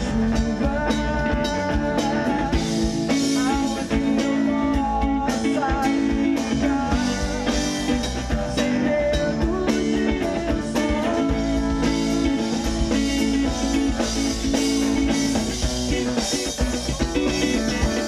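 Live rock band playing through an amplified sound system: drum kit, electric bass, acoustic and electric guitars, with a vocalist singing.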